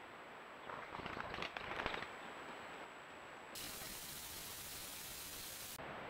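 A trail camera's microphone hiss, with a brief crackling rustle about a second in. The hiss turns brighter and louder a little past halfway and drops back just before the end.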